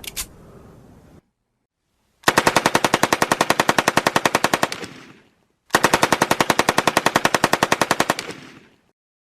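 Machine gun firing two long bursts of rapid, evenly spaced shots with a short pause between them.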